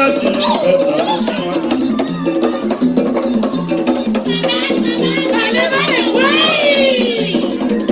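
Live music from a stage group: voices singing in gliding, wavering lines over a steady rhythmic accompaniment with percussion.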